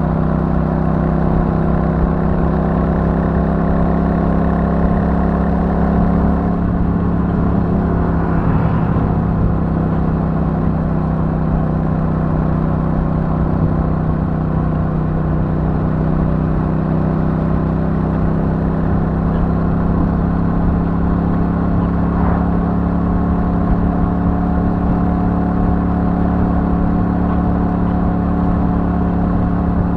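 Royal Enfield Super Meteor 650's parallel-twin engine running steadily through its stock exhaust at cruising speed. The note holds nearly constant, with a slight shift in pitch about seven seconds in.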